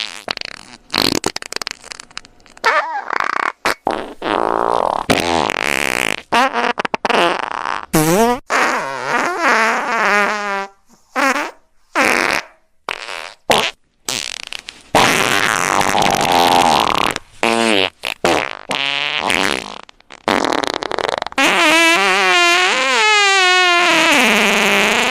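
Farting sound effect: a long run of wavering, pitched fart noises, broken by frequent short gaps.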